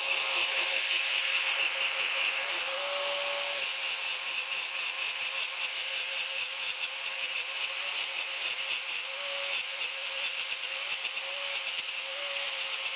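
Angle grinder running with a steady high whine, its disc grinding grooves into a flat steel bar with a hiss of grinding. The whine's pitch wavers slightly a few times.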